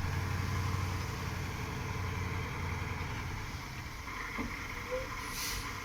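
KAMAZ truck's diesel engine running steadily, with a brief hiss near the end.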